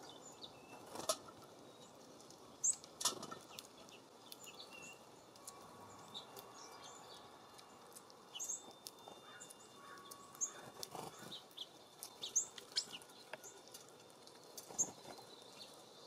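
Small songbirds at a feeder: scattered short, high chirps and call notes, with a few brief flutters and clicks as birds land and feed.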